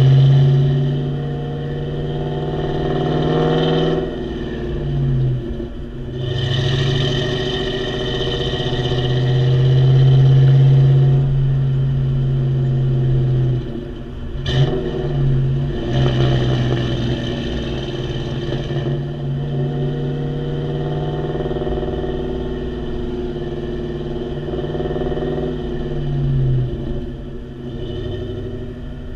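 Exhaust of a 2000 Ford Mustang GT's 4.6-litre V8, through a Mac H-pipe and Flowmaster Super 44 mufflers, recorded close to the tailpipes while driving. The note rises and falls in pitch several times as the car accelerates and eases off. A single sharp click comes about halfway through.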